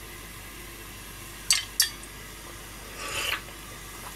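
A metal ladle clinks lightly twice against a frying pan of simmering broth, then a short soft swish near the end as it is lifted out, over a faint steady hiss.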